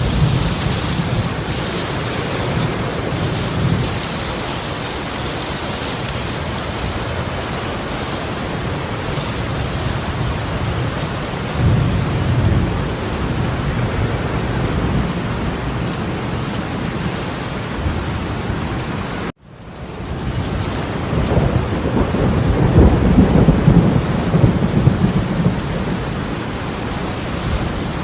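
Torrential rain pouring down in a steady hiss, with low rumbles swelling now and then. About two-thirds of the way through, the sound cuts out abruptly and fades back in.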